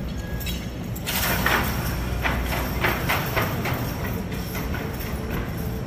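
A steady low rumble of a large indoor arena. From about a second in there is a run of irregular knocks and rattles, a few a second, from a team of draft horses and the weighted sled they are hitched to, which fades out near the end.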